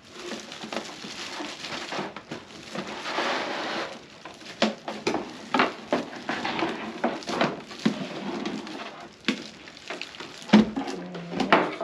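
Packaging rustling for about four seconds, then a run of light knocks and clicks as the humidifier's parts are handled and taken out of the box.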